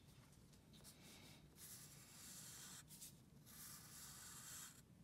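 Faint scratching of a pencil on paper: several long strokes as a line is drawn around a written equation on a worksheet.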